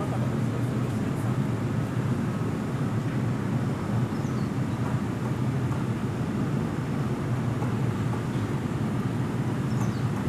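Steady low hum of a JR East 185 series electric train standing at the platform, its onboard equipment running.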